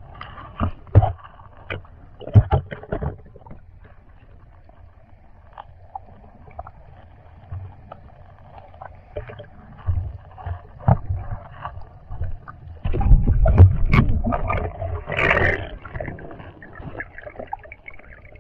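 Muffled water sounds picked up by a camera held underwater: scattered knocks and bumps over a low rumble, with a louder rush of moving water from about thirteen to sixteen seconds in.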